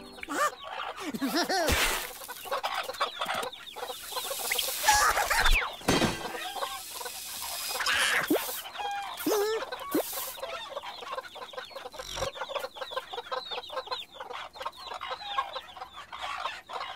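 Cartoon hens clucking and squawking in quick, chattering calls, broken by a few thumps.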